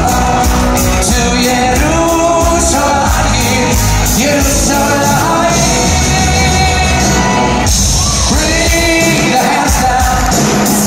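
Live band playing an upbeat pop song with a male lead singer, drums and bass, amplified through the PA and echoing in a large hall. The band thins out briefly about eight seconds in before coming back in.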